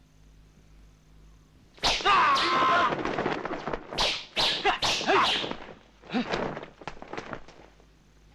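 A man's loud, wild laughter in a series of bursts, starting about two seconds in and tailing off near the end.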